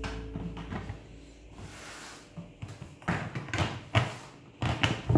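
Gold cardboard lid being fitted onto a clear plastic round cake box: a run of short plastic knocks, taps and rustles, loudest in the second half.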